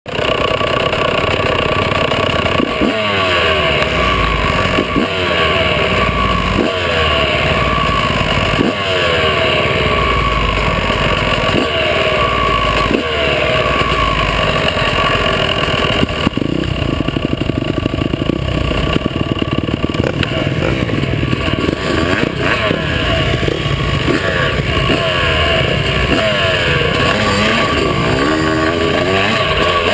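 Yamaha YZ125 two-stroke single-cylinder engine heard close up while the motocross bike is ridden, the pitch rising again and again as it revs out and dropping back, every two seconds or so, with a steadier stretch about halfway through.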